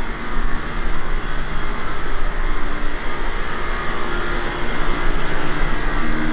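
Steady loud rush of air with a low hum, from a spray paint booth in operation.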